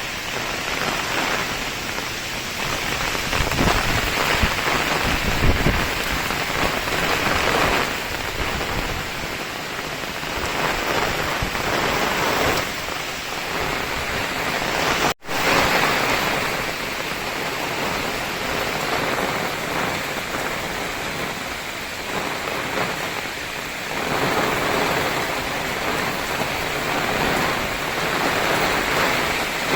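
Heavy rain pouring down steadily in a storm, with a low rumble about four seconds in. The sound cuts out for an instant about halfway through.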